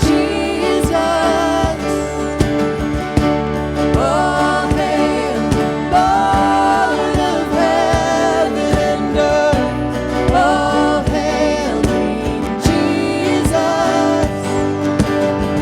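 A Christian worship song: a singer holds long notes with vibrato over steady instrumental backing.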